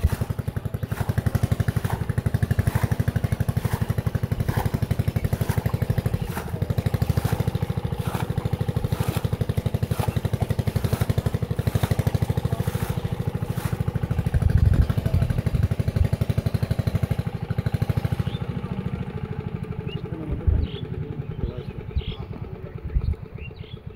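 A small engine runs steadily nearby with a fast, even pulse and fades away about three quarters of the way through. Over it come short splashes and squelches of hands working in mud and shallow water.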